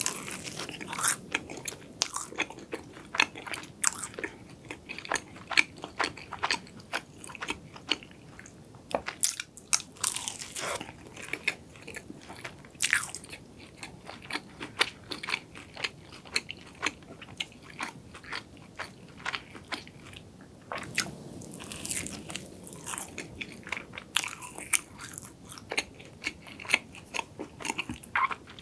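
Close-miked biting and chewing of a honeycomb-topped cream cronut: many crisp, irregular crunches and crackles from the flaky laminated pastry and honeycomb.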